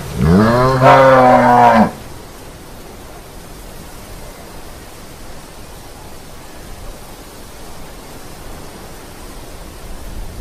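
A Holstein cow mooing once: a single loud call of about a second and a half that rises in pitch at the start and drops away at the end. A steady background hiss follows.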